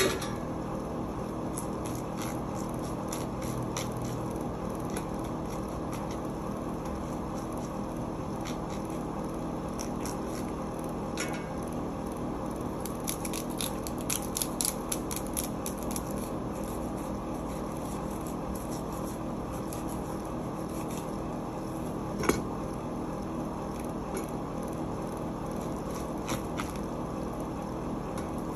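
Knife and fish handling on a cutting board: scattered small scrapes and clicks while salmon pieces are trimmed, with one sharper knock about two-thirds of the way through, over a steady background hum.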